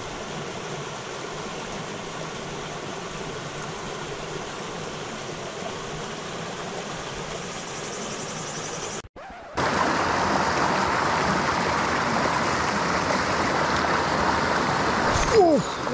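Mountain stream water rushing and splashing steadily over rocks in a small cascade. After a break about nine seconds in, it comes back louder. Near the end there is a brief knock and a short voice sound.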